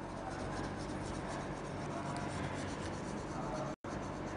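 Crayon rubbed back and forth on paper, colouring in an area: a steady soft scratching.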